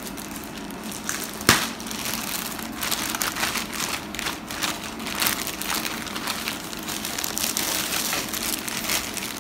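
Packaging crinkling and rustling as a laptop box is unpacked, in irregular handling noises, with one sharp click about a second and a half in.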